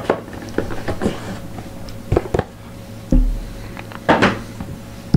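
Cardboard trading-card boxes being handled on a table: the lid pushed onto an emptied box and the box moved, a run of light taps and clicks, a dull thump about three seconds in and a short scrape about a second later.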